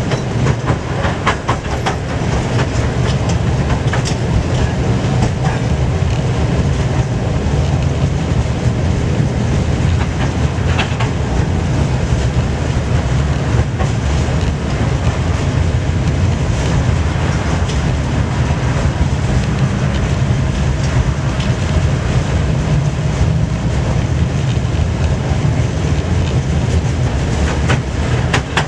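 Tram running along its track, heard from inside the car: a steady low rumble of wheels and running gear, with short clicks here and there as the wheels pass over rail joints.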